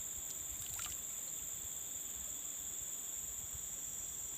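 Steady chorus of crickets and other insects: a high, unbroken trill, with a faint low background hiss beneath it.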